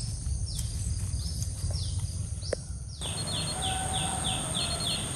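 Woodland ambience: a series of short, high calls, each falling in pitch, over a steady high-pitched insect drone and a low rumble. About three seconds in, the background changes and the falling calls come faster and more regularly, roughly three a second.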